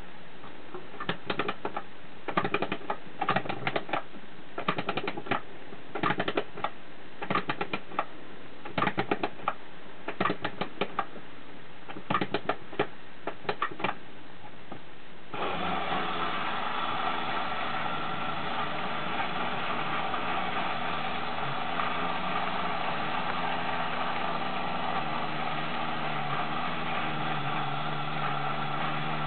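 Clockwork mechanism of a vintage German tinplate lighthouse toy being wound by its key, in short bursts of ratchet clicks about once a second. About halfway through the clicking stops and the wound spring motor starts with a sudden steady whirr, driving the tin boat along its track.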